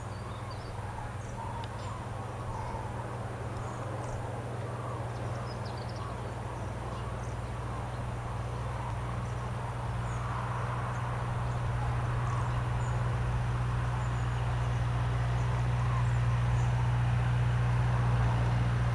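Faint, distant calls of migrating common cranes over a steady low hum that slowly grows louder.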